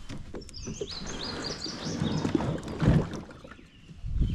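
Plastic kayak hull being worked over a log jam: scraping and bumping against wood, with a heavy knock about three seconds in and another near the end. A bird sings in the first couple of seconds.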